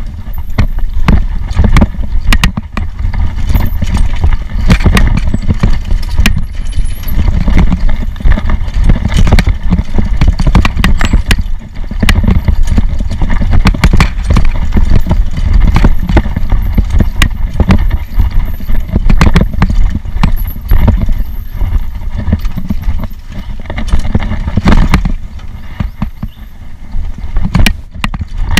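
Mountain bike rattling and clattering over a rough, rocky dirt trail on a fast descent, many sharp knocks over a heavy low rumble of wind buffeting the microphone. The noise eases briefly about three-quarters of the way through.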